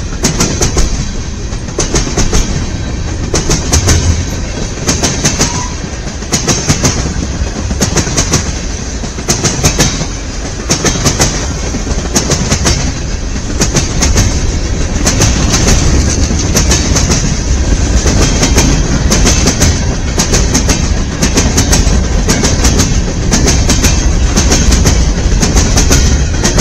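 Freight train cars rolling past close by, the wheels clicking over rail joints in regular clusters as each car's trucks go by, over a steady rumble.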